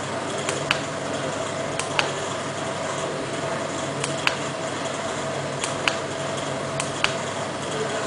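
About a dozen sharp clicks at irregular intervals, many in pairs a quarter second apart, over a steady hiss and low hum with a faint steady tone.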